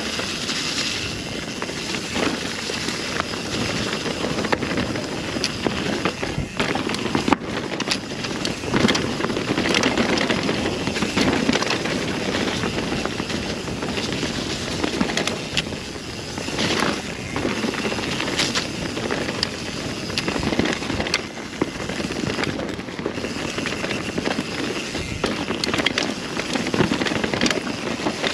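Mountain bike descending a rough woodland trail: continuous rushing of wind over the camera microphone and tyres on dirt, broken by frequent sharp clatters and knocks as the bike jolts over roots and bumps.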